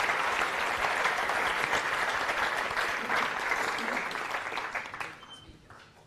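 Audience applauding, a dense patter of many hands clapping that dies away about five seconds in.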